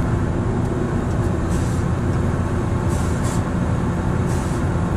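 Steady low hum of running commercial refrigeration equipment, a compressor and condenser fans, with a few faint rustles and scrapes from wire being handled.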